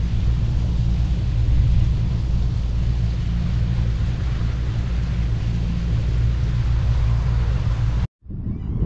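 Small boat's outboard motor running steadily at cruising speed under way, a low, even drone with a rush of wind and water over it. The sound cuts off suddenly near the end.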